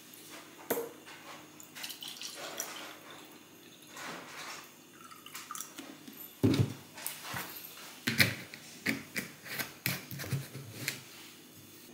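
Juice pouring from a carton into a stemmed wine glass, followed by a series of sharp knocks and taps as the carton and glass are handled on the table, the first knock the loudest.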